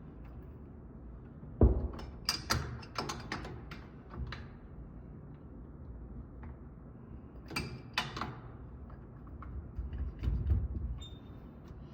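Scattered knocks, clicks and clanks of flush-valve parts and tools being handled and fitted, the loudest knock about a second and a half in and another cluster near eight seconds.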